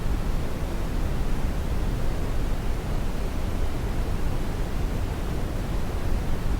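Steady white noise for lulling a baby to sleep: an even, unchanging hiss weighted toward the deep end.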